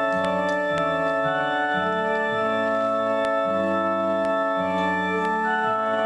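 Organ music: sustained chords held over a bass line that steps slowly from note to note.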